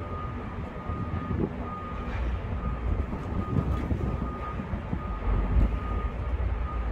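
Construction-site noise: a steady low machinery rumble with a high beep repeating about once a second, typical of a construction vehicle's reversing alarm.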